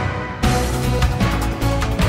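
News programme theme music with drums and heavy bass, the full beat coming in about half a second in.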